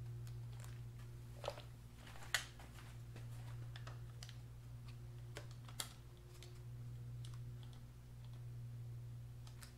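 Scattered clicks and knocks of one-handed bar clamps being handled and squeezed tight on a bunk cover, with three sharper clicks, the loudest about two seconds in, over a steady low hum.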